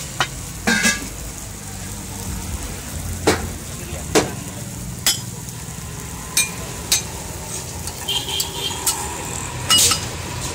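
Dosas sizzling on a hot griddle, with about a dozen sharp metal clinks and scrapes of spatulas and ladles against the griddle and steel pots.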